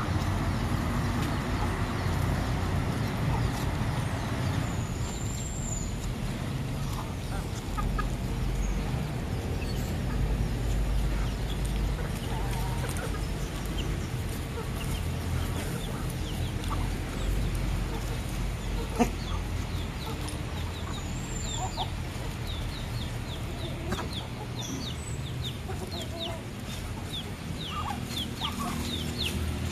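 Chickens clucking as a flock of fowl feeds on the ground, with scattered short clicks and a quick run of high chick peeps near the end.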